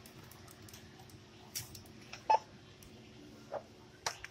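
Self-checkout barcode scanner giving a short beep about halfway through as an item is scanned, with a few soft clicks and knocks of groceries being handled, over a faint steady hum.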